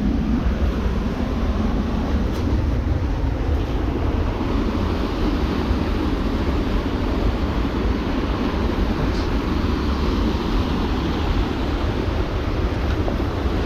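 Steady rushing of a mountain creek's flowing water, an even noise without breaks.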